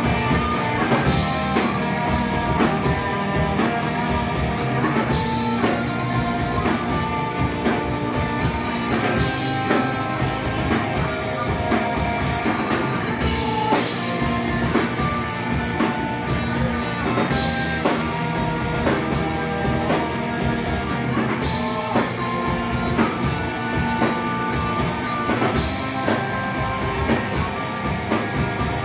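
Rock band playing live, with drum kit and guitar.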